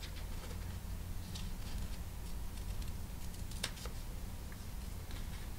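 Small sharp embroidery scissors snipping through fabric backed with paper fusible web: a few separate, short snips, the sharpest about three and a half seconds in.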